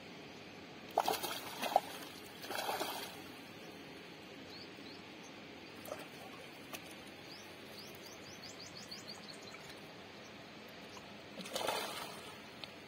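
Hooked fish splashing in shallow water at the shoreline as it is pulled in on a hand line: two splashes in the first three seconds and a bigger splash near the end as hands grab at it in the water. A bird gives a run of short rising chirps in the middle.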